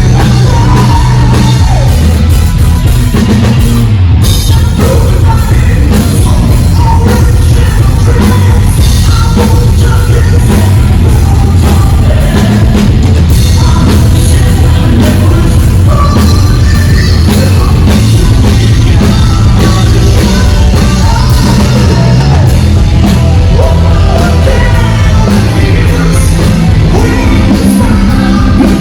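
Loud rock band playing with drums and a heavy, distorted low end, a voice singing over it.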